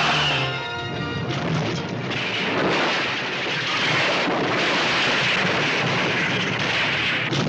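A car crashing and tumbling down a rocky cliffside: a loud, continuous rumbling crash of metal and rocks, with music underneath.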